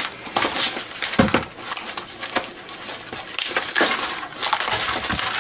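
Packing tape and wrapping being torn and crinkled off a parcel by hand: irregular rustling and crackling, with a few sharper snaps.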